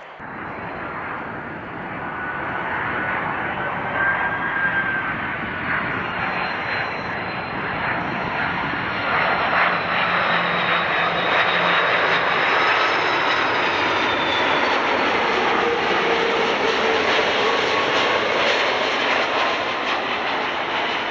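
Jet airliner's engines passing close by: a rushing jet noise that builds over the first few seconds and stays loud, with faint whining tones that slowly slide in pitch.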